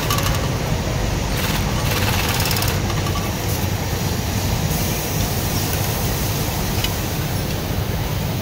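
Dürkopp 697 industrial sewing machine stitching in a few short, rapid bursts during the first three seconds, then stopping, over a steady machine hum.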